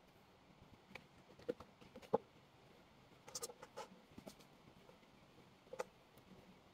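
Faint, scattered clicks and snaps of a small knife cutting through unripe green bananas and fingers breaking the pieces apart on a plastic tray, the sharpest click about two seconds in.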